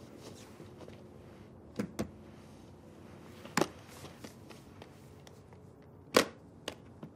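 Several short, sharp clicks and knocks over quiet room tone, the loudest about six seconds in: handling noises as a small aluminium case is brought onto a bed.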